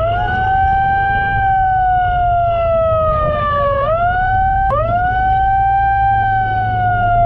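Patrol boat's siren wailing in two long sweeps: each one jumps up in pitch, then slowly sags, with a brief break and a click in between, over the steady low drone of the boat's engine. It is a warning to the fishing boat to stop.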